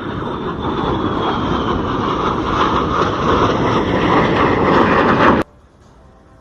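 An aircraft flying past, getting louder as it nears, with a high whine that slowly falls in pitch. The sound cuts off suddenly about five and a half seconds in.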